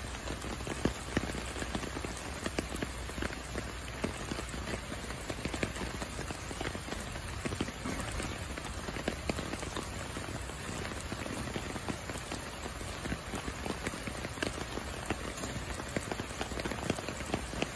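Heavy rain falling steadily: a dense patter of many separate drops.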